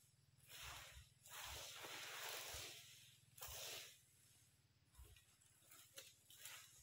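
Brooms sweeping dry fallen rubber-tree leaves: faint swishing strokes, three in the first four seconds, the longest about a second and a half, then only a few light rustles.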